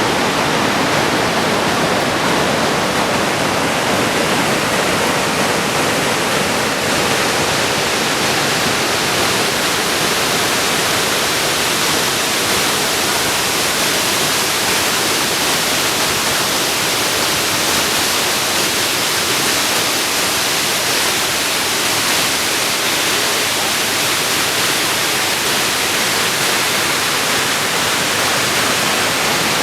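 Steady roar of a large waterfall, the Genesee River's Middle Falls pouring over a broad drop, heard as a loud, even rush of water.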